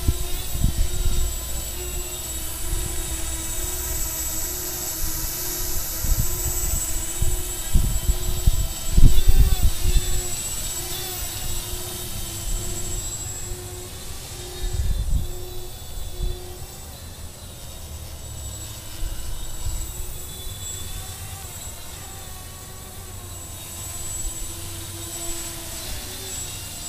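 Xaircraft X650 quadcopter flying on small props: the electric motors and propellers make a steady whine that shifts slightly in pitch as they change speed. Irregular low rumbles rise over it, the loudest about nine seconds in.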